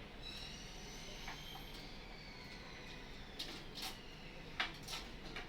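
Faint handling noise and short plastic clicks as a power-supply cable connector is pushed into its socket on the motherboard, with the sharpest clicks in the second half.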